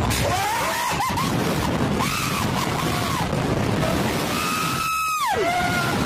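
Slingshot riders yelling and screaming as the ride launches. Near the end one long, high scream is held, then drops sharply in pitch. A steady rushing noise runs underneath.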